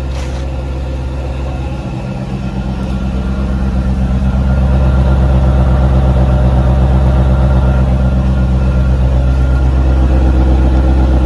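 1987 Chevrolet Corvette's 5.7-litre V8 idling steadily, heard at its twin exhaust tailpipes. It grows louder over the first few seconds as the tailpipes come close, then holds even.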